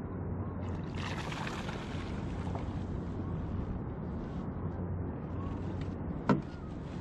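A small boat's motor running steadily with a low hum, while trolling. About a second in there is a brief hiss, and near the end a single sharp knock.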